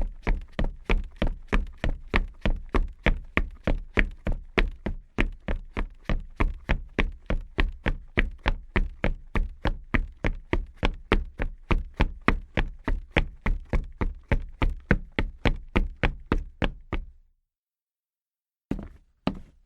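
Quick footsteps on a hard floor, about three even steps a second, as in fast walking or running. They stop about 17 seconds in, and after a short silence the steps start again near the end.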